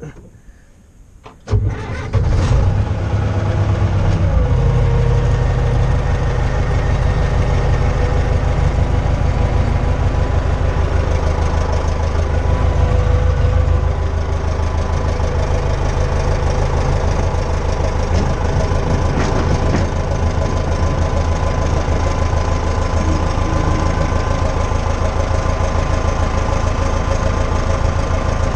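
Case 850B crawler dozer's diesel engine starting about a second and a half in, then running steadily at idle.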